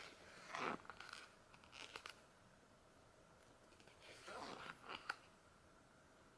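Glossy photobook pages being turned, a short rustle of paper twice, the second ending in a sharp snap of the page.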